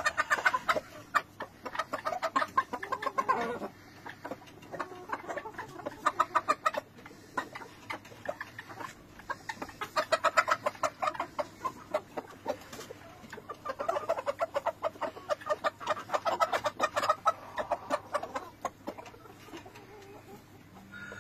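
Bantam chickens clucking in quick runs of short notes, several bursts separated by brief pauses.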